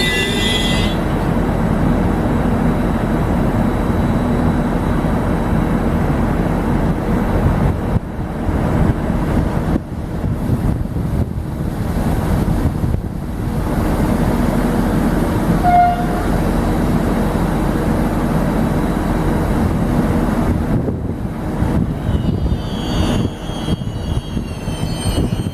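A train rolling along the rails with a steady, loud rumble of wheels. Near the end, thin high-pitched wheel squeal comes back in.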